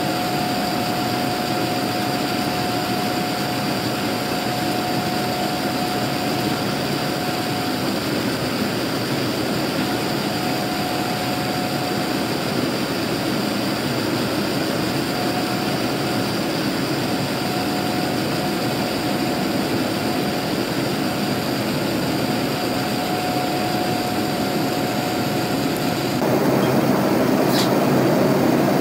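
Steady noise of a Boeing 787-9's jet engines and rushing air heard inside the cabin, with a faint steady hum that drops out now and then. About 26 seconds in the noise steps up a little louder.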